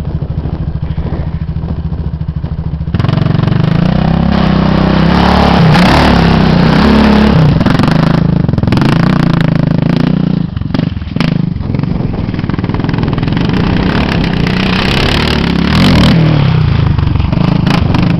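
An ATV engine is first heard running at a distance with a steady pulse. About three seconds in, a much louder engine close to the microphone takes over, revving up and down as the machine rides over the sand. It eases off briefly just after the middle and revs hard again near the end.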